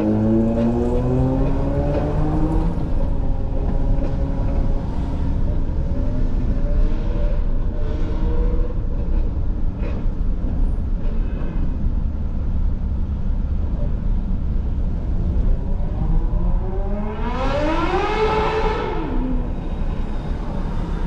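Car driving slowly, a steady low engine and road rumble with its engine note drifting up and down. About seventeen seconds in, a louder pitched wail rises and then falls over a couple of seconds.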